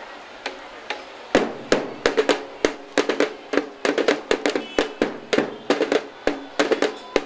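Marching band drums beating a sharp, rhythmic cadence of about three to four strokes a second, starting about a second and a half in after a couple of single clicks.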